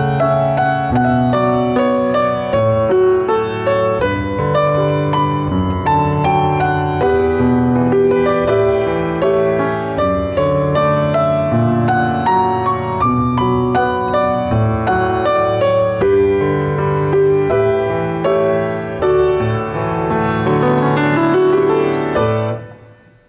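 Piano music: a steady flow of notes and chords that fades out near the end.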